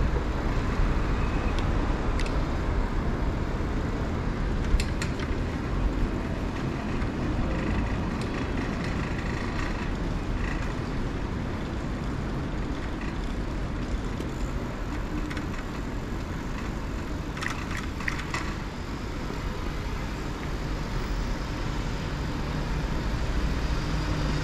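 Steady rumble of road traffic on a city street, with a few short clicks about five seconds in and again a little before the end.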